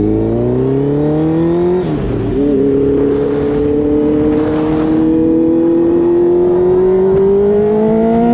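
Sport motorcycle engine accelerating through the gears: the revs climb, drop sharply at an upshift about two seconds in, then climb again more slowly in the next gear.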